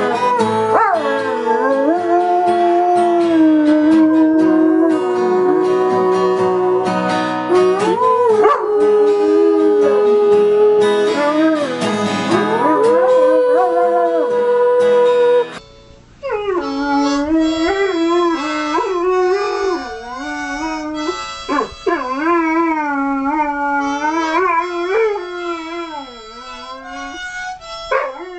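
A German Shepherd howling along to a strummed acoustic guitar, in long notes that glide up and down. After an abrupt cut about halfway through, a Weimaraner howls along to a harmonica.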